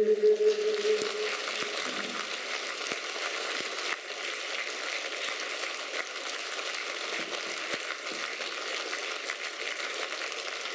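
Concert audience applauding, a steady even clapping, as the last held note of the song fades out in the first second or so.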